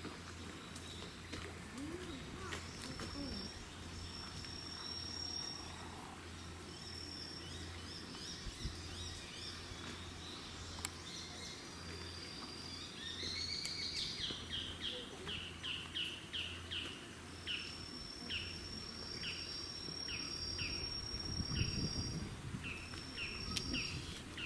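Background birdsong and insects: steady high thin tones, and from about halfway a bird repeating short falling chirps about two a second, over a low steady hum.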